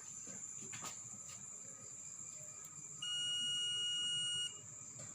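Digital multimeter in continuity mode giving one steady, high-pitched beep lasting about a second and a half, starting about three seconds in, as the probes make contact.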